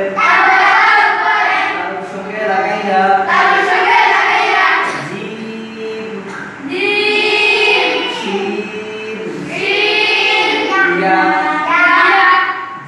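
A group of children, led by a man, chanting Arabic alphabet letters in unison in a sing-song recitation, with drawn-out phrases of a second or two each.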